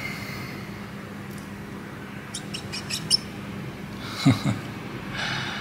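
Cotton swab scrubbing a MacBook logic board wet with isopropyl alcohol: a few light clicks in the middle and short squeaks near the end, over a low steady hum.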